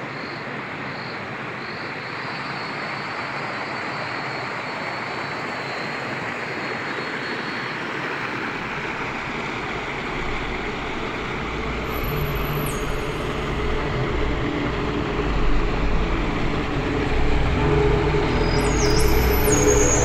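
Small waterfall and rocky stream rushing over stones, a steady rush of water. About halfway in, a low hum joins and grows louder toward the end.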